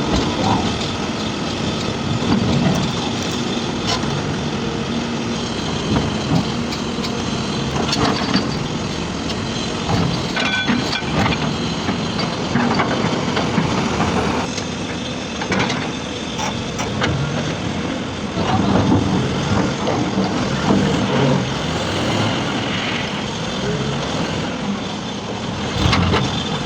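Heavy earthmoving machines' engines running steadily under load, with scattered sharp knocks and clanks of rock and steel.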